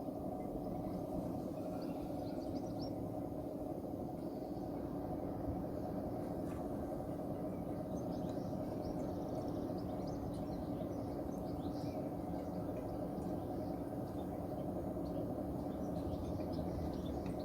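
Steady low rushing hum with a constant tone running through it, from a water-fuelled oxyhydrogen welding torch and its gas generator working lead. Faint bird chirps sound in the background.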